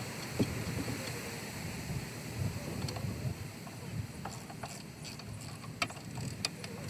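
Scattered metallic clicks and knocks from hand tools working on brake parts, mostly in the second half, over a steady low background hum.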